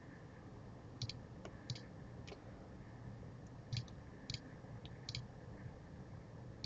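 Computer mouse buttons clicking, about eight short sharp clicks at irregular intervals, over faint room tone.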